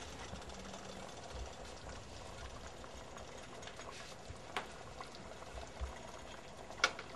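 Faint steady sizzle of a little olive oil heating under a flour tortilla in a nonstick pan, with a sharp click past the middle and another near the end as fingers touch the tortilla and pan.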